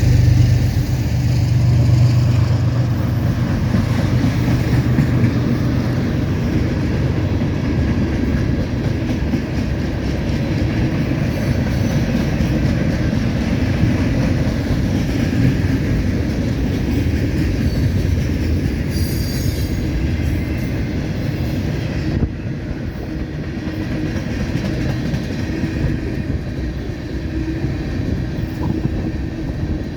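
Freight cars of a CSX mixed manifest train rolling past with a steady rumble and clatter of wheels on rail. A trailing diesel locomotive's low hum fades in the first couple of seconds, and a brief high wheel squeal comes about two-thirds of the way through.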